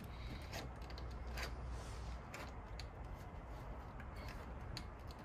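Scattered light clicks and rubbing from hands handling the mini excavator's battery and jump-pack connections, over a low steady rumble.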